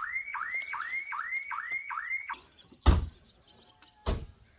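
A repeating call of six identical notes, each sweeping upward, a little over two a second, which stops after about two and a half seconds. Then two heavy thumps about a second apart, the first the loudest sound.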